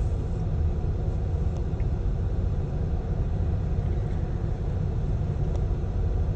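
Steady low rumble of a freight train of grain hopper cars rolling past.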